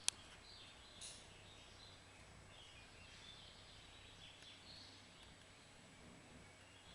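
Faint, scattered high chirps of birds over a quiet background, with one sharp click right at the start.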